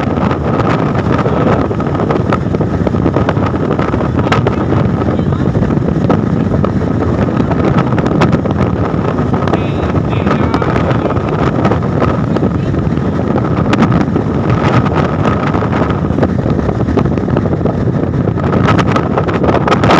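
Steady road and wind noise of a vehicle driving at highway speed, with wind buffeting the microphone at the side window and a steady high whine.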